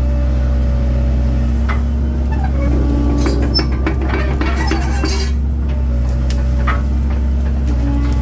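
1997 Link-Belt 2700 excavator's diesel engine running steadily. Metallic clinks and knocks come in a cluster from about two and a half to five seconds in as the machine works.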